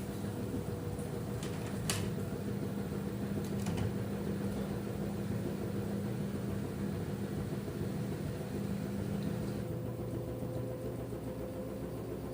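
LG F10B8MD front-loading washing machine in the final spin of an 800 rpm cotton programme, running with a steady motor hum and whir. A few light clicks come about two seconds in, and the hum thins out for a couple of seconds near the end before picking up again.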